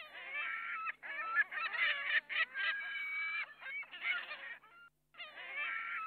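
A flock of flamingos calling: many overlapping honking calls at once, breaking off for about half a second near the end.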